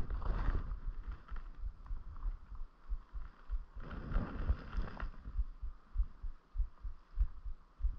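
Footsteps of someone walking with a body-worn camera, a steady run of low thuds a few times a second. Twice, gusts of wind buffet the microphone.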